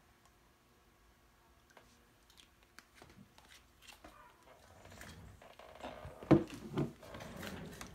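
Scattered knocks and rustling of things being handled close by, with one sharp loud knock about six seconds in; the first few seconds are nearly silent.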